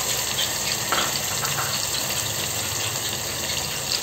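Puréed tomatoes frying in hot oil in a pot, a steady sizzle with a few small pops about a second in.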